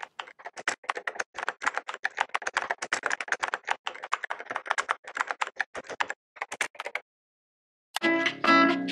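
Rapid computer-keyboard typing, a quick irregular run of keystrokes that stops about seven seconds in. A plucked, tuneful music jingle starts just before the end.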